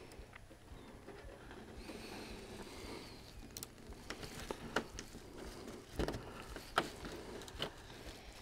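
Small sharp clicks and light rustling as rail nippers are worked onto the metal rail of HO-scale flex track and squeezed to cut it. The clicks come a few at a time in the second half, the strongest about six and seven seconds in.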